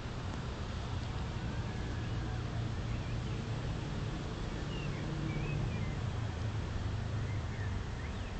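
Distant city ambience: a steady low rumble of far-off traffic, with a few faint high chirps about halfway through and again near the end.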